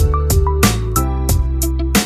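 Background music with a steady beat, sustained bass notes and short plucked melody notes.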